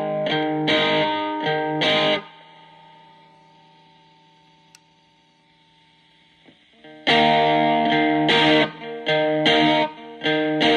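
Electric guitar played through a breadboarded MXR Distortion+ style circuit whose clipping diodes are swapped through a diode substitution box. Distorted chords are struck over and over, stop about two seconds in and die away, with a single click in the gap, then start again about seven seconds in.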